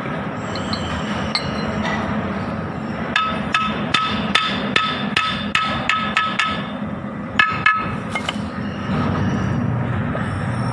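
Hammer tapping the cast-iron front-axle gear case of a Kubota L1802DT tractor. About a dozen quick ringing metallic taps come at roughly three to four a second, then two or three more a moment later, over steady background noise.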